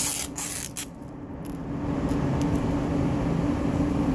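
Steady low machine hum, with a few short clicks and rustles of hands handling small parts in the first second.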